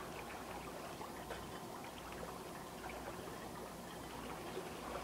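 Pool water sloshing and trickling with small splashes as a swimmer moves through an above-ground pool and surfaces, a steady watery wash without any big splash.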